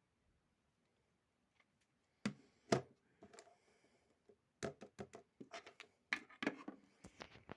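Handling noises from hands: two sharp knocks about two seconds in, then from about four and a half seconds a quick run of clicks and rubbing.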